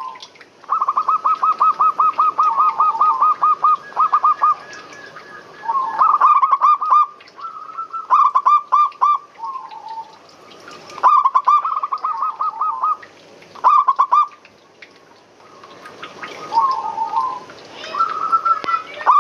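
Zebra doves (perkutut) cooing: rapid trains of short, pitched coo notes in phrases of one to four seconds separated by short pauses, at times two birds calling over each other at slightly different pitches. A steady faint hiss lies underneath.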